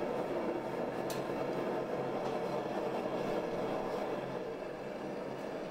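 A forge running with a steady drone in the smithy while the hatchet head is brought out glowing hot for a normalizing cycle, plus a faint click about a second in.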